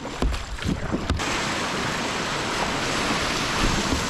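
Kayak paddle strokes splashing in moving water, then from about a second in a steady loud rush of whitewater as the kayak runs a rapid, with water breaking over the bow.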